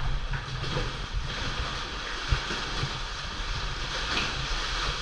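Sea water washing and sloshing against rock inside a sea cave, with a low rumble of wind on the microphone. A single sharp knock about two seconds in.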